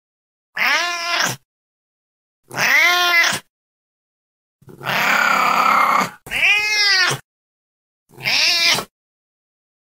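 Domestic cat meowing five times with silence between, short calls that rise and fall in pitch; the third call is longer and harsher.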